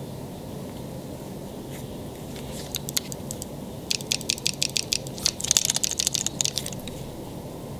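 Planet Eclipse Etha 2 paintball marker handled in the hands: a few sharp plastic clicks, then about four seconds in a fast run of clicks, about eight a second, giving way to a denser patch of clicking and scraping.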